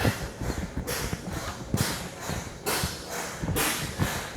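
Slow footsteps crunching, about one step a second, with soft low thumps between them.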